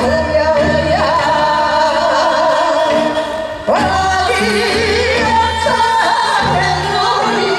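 A group of women singing a Korean folk song (minyo) into microphones over amplified instrumental accompaniment, holding long wavering notes. The voices break off briefly about three and a half seconds in and come back with a rising slide.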